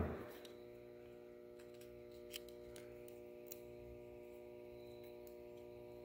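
Quiet room tone with a steady low electrical hum, and a couple of faint clicks from a small plastic light-switch rotor being handled, about two and a half and three and a half seconds in.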